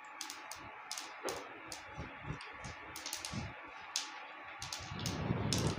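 Mustard and sesame seeds spluttering in hot oil during a tempering: irregular sharp pops over a faint steady sizzle.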